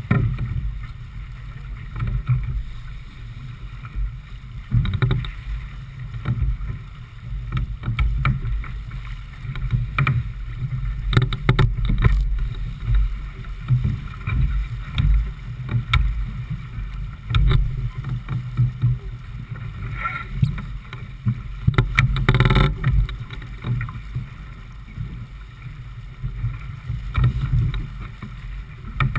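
Rumbling, gusting wind on the microphone and water rushing along the hull of a J/24 keelboat under sail, with scattered small knocks and a brief louder burst about three-quarters of the way through.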